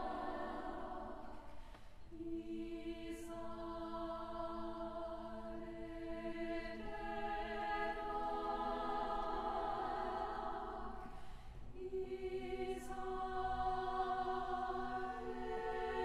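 Women's chamber choir singing slow, sustained chords in long phrases. There is a short break between phrases about two seconds in and again about three quarters of the way through, each followed by a soft sibilant 's' as singing resumes.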